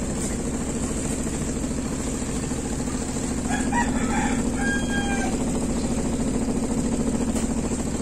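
Top-loading washing machine running with its tub spinning, a steady motor hum. A rooster crows once about halfway through.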